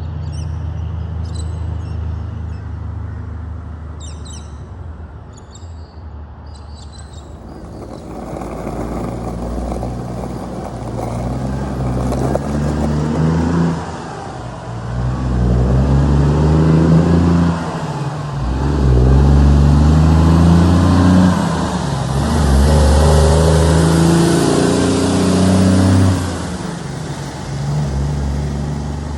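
Heavy diesel truck engine running low, then pulling away from about eight seconds in and accelerating through the gears: the engine note climbs and drops back four times as it changes up, growing louder, before easing off near the end. Birds chirp over the low engine in the first few seconds.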